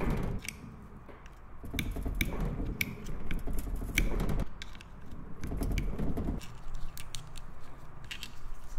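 Clutch pressure-plate bolts on a Honda CR85 two-stroke engine being loosened with a box-end wrench, with many sharp metal clicks and several stretches of rattling from the wrench, bolts and clutch.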